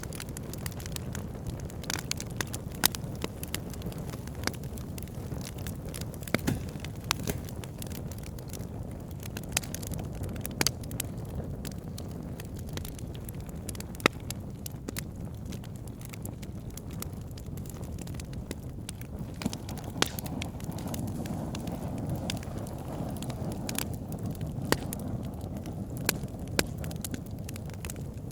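Campfire burning with a steady low rush of flames and frequent sharp, irregular crackles and pops.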